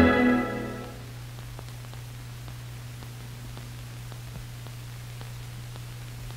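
The last orchestral chord of the closing music dies away in about the first second. After that there is only the steady hiss of an old film soundtrack, with a low hum and faint scattered clicks.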